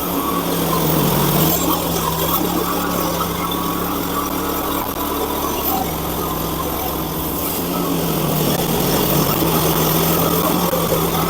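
Portable band sawmill's small gas engine running steadily under load as the band blade cuts through a cherry log.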